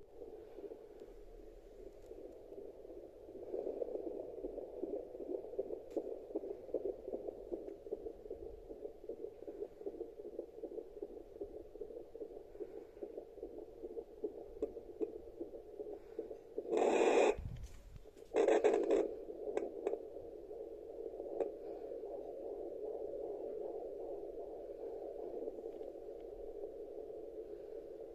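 Unborn baby's heartbeat picked up by a fetal Doppler ultrasound on a pregnant belly: a steady rhythmic whooshing pulse through the device's speaker. Two brief loud crackles come a little past the middle.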